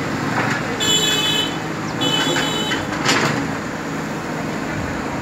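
Heavy construction machine's diesel engine running steadily, with two high-pitched tones, each about half a second long, about one and two seconds in.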